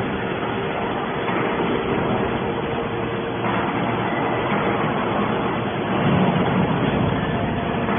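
Scrap metal baler's engine and hydraulics running steadily with a constant hum, growing louder about six seconds in.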